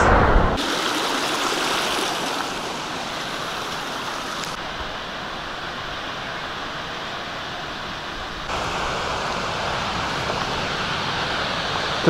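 Steady rush of a mountain waterfall's falling water, with no distinct tones. It shifts abruptly in tone and loudness a few times.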